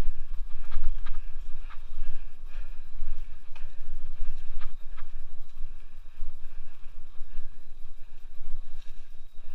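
Scott Aspect 770 hardtail mountain bike ridden fast over leaf-covered dirt singletrack: wind rumbles on the helmet-mounted microphone, with irregular clicks and rattles from the bike jolting over the rough trail.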